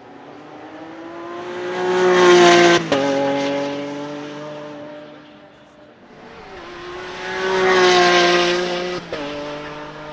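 Lamborghini Centenario Roadster's naturally aspirated V12 accelerating hard past, twice. Each time the engine note climbs and swells, then drops sharply on an upshift, about three seconds in and again about nine seconds in.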